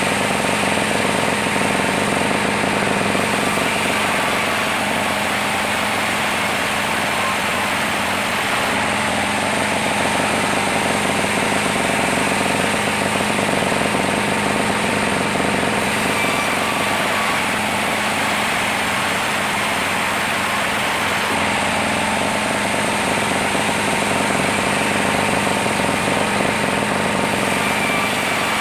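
Sawmill saw running steadily, sawing through a large saman (rain tree) log, a continuous mechanical din with a steady hum underneath.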